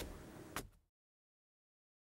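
Faint room noise with a single sharp click about half a second in, then the sound cuts off to dead silence.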